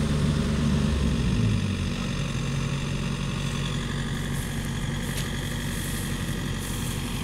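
Engines of a Yanmar combine harvester and a farm tractor running steadily. About a second and a half in, the deepest, loudest engine note drops away, leaving a quieter, even idle.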